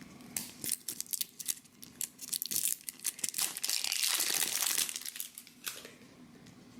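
Blind-egg toy packaging being crinkled and torn open by hand: a run of quick crackles and rustles lasting about five seconds that stops shortly before the end.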